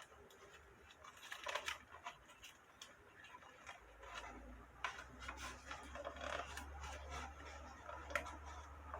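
Scattered small clicks and short scratchy handling noises from close work on a cicada specimen as its wings are being set. A low steady hum comes in about four seconds in.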